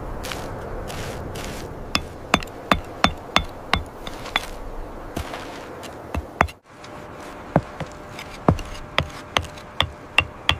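Mallet striking a chisel into stone: a run of sharp strikes, each with a short ring, about two or three a second, pausing briefly in the middle.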